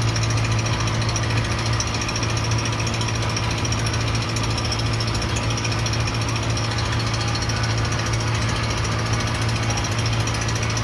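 Motorboat engine running steadily with a constant low, rapid chugging drone.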